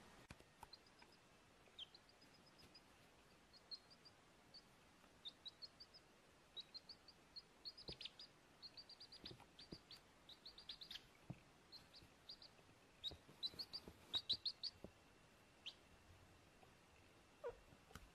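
Baby chick peeping: short, high cheeps, often in quick runs of two to four, scattered throughout and louder in the second half.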